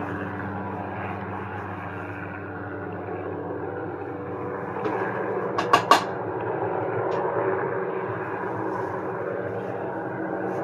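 An engine running steadily with a low, even hum. Two sharp clicks a little past halfway are the loudest sounds, with fainter single clicks just before and after them.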